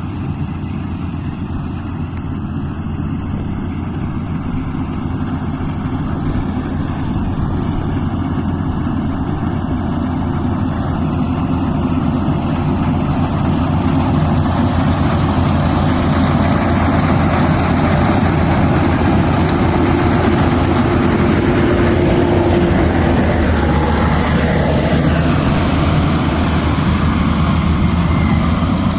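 Yanmar AW82GV combine harvester's diesel engine running steadily, growing louder and noisier over the first fifteen seconds or so, then holding.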